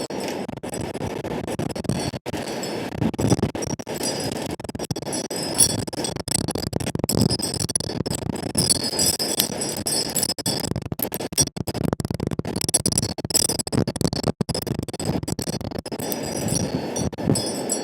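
Wind chimes tinkling irregularly in gusty wind, with wind rumbling on the microphone underneath.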